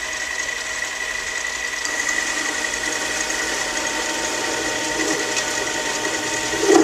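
Metal lathe running, its cutting tool taking a pass along a small bolt blank to turn it down in diameter. A steady machine hum with a high whine runs throughout.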